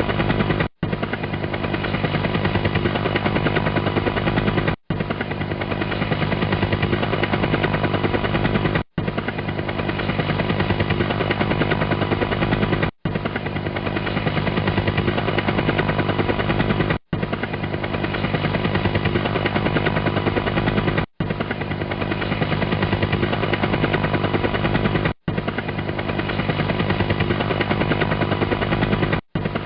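Helicopter running steadily, its rotor chop a fast even beat over a constant engine tone. The sound drops out for an instant about every four seconds, as a short recording repeated in a loop.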